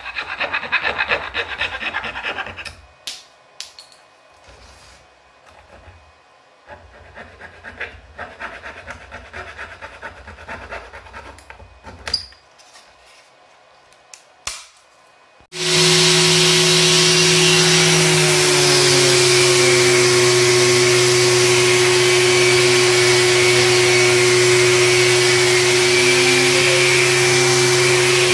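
A hand-held saw blade cutting through the thin wooden holding tabs left on a CNC-cut cutting board, in bursts of quick rasping strokes with pauses. About halfway through, a Makita random orbit sander connected to a dust extractor hose switches on suddenly and runs steadily, much louder than the sawing, its hum dropping slightly in pitch a couple of seconds after starting.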